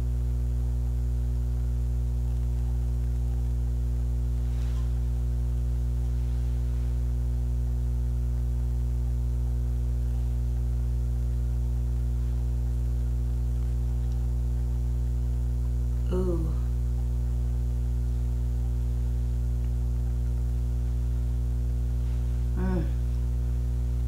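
Steady, loud mains hum: a low electrical drone with a buzz of higher overtones, unchanging in level.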